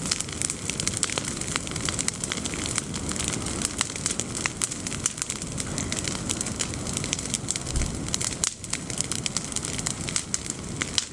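Bonfire of pruned olive branches and leaves burning, with a steady rush of flame and many sharp crackles and pops throughout.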